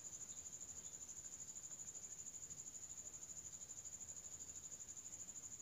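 A cricket trilling steadily: a faint, high-pitched, rapidly pulsing trill over low background hiss.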